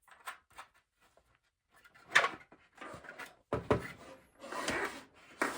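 Lamp parts being handled during assembly: a few faint clicks, then knocks and short scraping noises as the outer nut is picked up and threaded on. The loudest knock comes about two seconds in.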